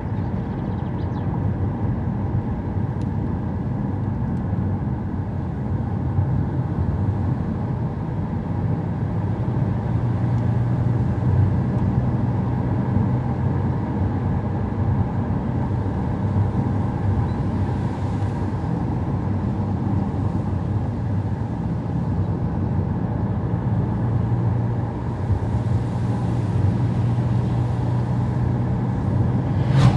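Car driving: a steady engine hum with tyre and road noise. The engine note grows stronger about a third of the way in and again near the end.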